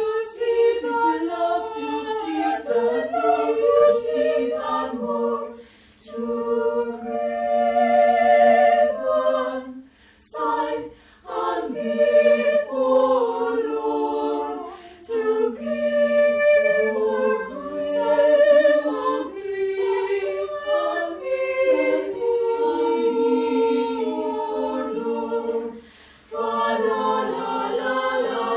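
Mixed choir of men's and women's voices singing a cappella, several voice parts at once, in phrases broken by short pauses.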